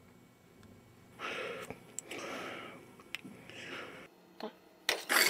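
A person asleep face-down breathing heavily: three long, noisy breaths. Near the end a sudden, loud, hard clatter with a ringing rattle cuts in.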